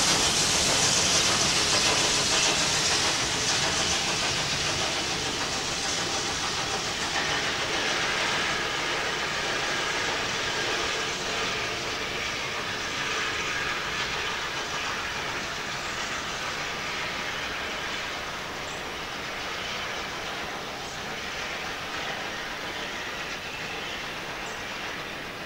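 Steam train running away into the distance, the noise of its wheels on the track and its steam hiss fading steadily.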